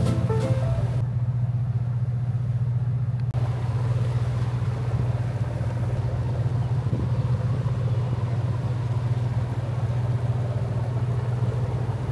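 Ferry engine running with a steady low drone and no change in pitch.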